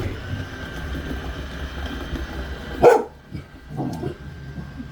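A dog barks at a running Roomba robot vacuum: one loud bark about three seconds in and a softer one about a second later, over the vacuum's steady low whirr.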